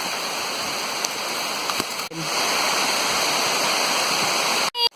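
Heavy tropical rain pouring down in a steady, dense hiss. It grows a little louder about two seconds in and cuts out briefly just before the end.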